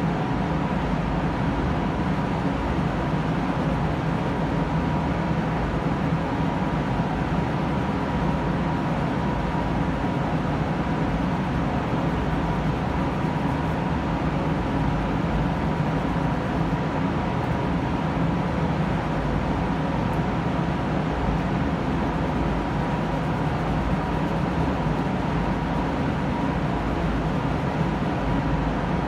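Paint booth ventilation fans running, a steady loud drone with a constant hum and a faint high whine.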